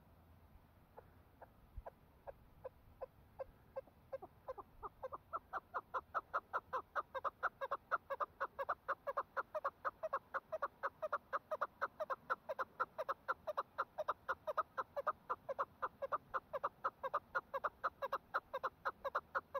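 Chukar partridge calling: a run of short clucking 'chuck' notes, sparse and soft at first, speeding up and growing louder over the first few seconds into a fast, even chatter of about four to five notes a second.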